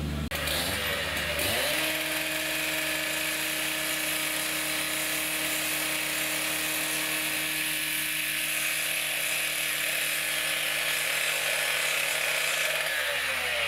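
Angle grinder spinning up about a second in, then cutting steel with a steady whine and hiss as it grinds through a bolt on a steel column's base plate, and winding down near the end.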